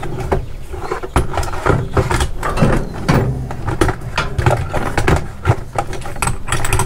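Rummaging through the drawers of a metal tool chest: loose sockets and hand tools clattering and clinking at an irregular pace, with drawers sliding open and shut.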